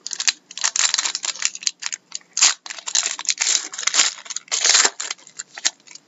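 A foil trading-card pack wrapper being torn open and crinkled by hand, then the cards slid out of it: a dense run of crinkling rustles that stops shortly before the end.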